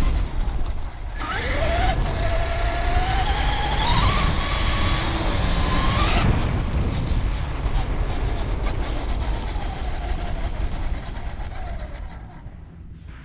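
RC car motor whining and rising in pitch as the car speeds up, over a loud rumble of the car moving over the ground. The whine cuts off about six seconds in, comes back fainter and falling, and the sound dies down near the end.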